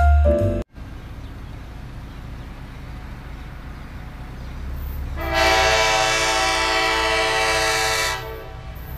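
Diesel passenger locomotive approaching with a low steady rumble. About five seconds in, its air horn sounds one long blast of about three seconds, several notes at once.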